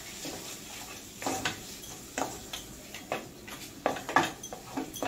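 A spatula scraping and knocking against a stainless steel pan while prawns are stirred through a thick masala, in uneven strokes roughly every half second to a second.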